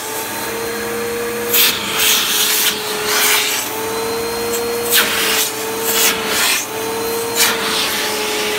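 Riccar bagged upright vacuum cleaner running on carpet: a steady motor whine under a rushing hiss of air, with several short surges of louder rushing noise.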